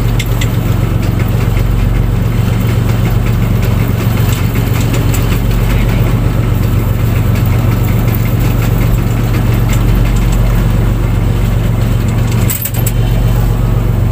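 Fishing boat's engine running steadily with a constant low drone. About twelve and a half seconds in there is a brief dip and a few clicks.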